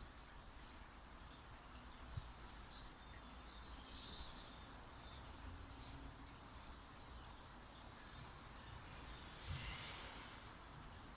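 Faint garden birdsong: a small bird sings quick, high chirping trills from about a second and a half in to about six seconds in. A low background rumble runs underneath, and a short faint rustle comes near the end.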